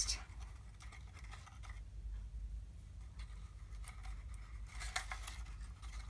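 Faint rustling and light scraping of patterned paper being handled and folded by hand, with a slightly louder rustle about five seconds in, over a low steady hum.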